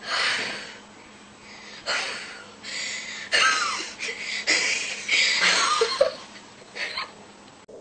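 A series of short breathy puffs, someone blowing out the candles on a birthday cake over several tries, mixed with people laughing.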